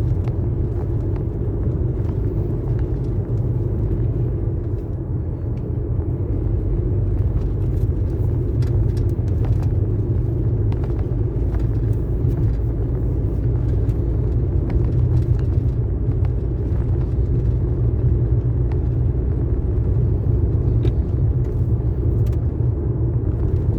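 Steady low rumble of a vehicle's engine and tyre noise, heard from inside the cabin while driving along the road, with scattered faint ticks.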